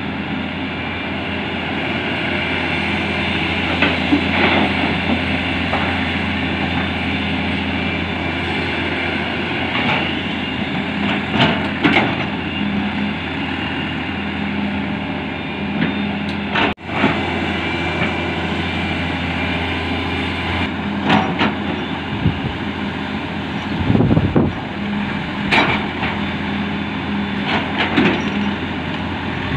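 Hydraulic excavator's diesel engine running steadily while it loads a dump truck, with intermittent clanks and thuds from the bucket and the dumped earth and stone.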